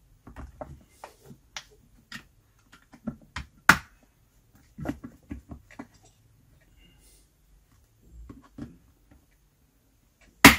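Plastic shell of a Recco steam iron being pried apart with a screwdriver: scattered small clicks and rattles of the housing, with a sharp snap about a third of the way in and a louder one at the very end as the retaining clips let go.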